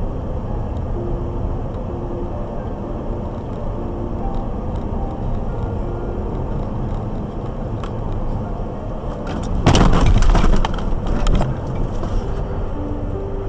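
Steady road and engine noise of a car driving, heard from a dash cam inside the car. About ten seconds in comes a loud burst of rattling knocks lasting about a second and a half.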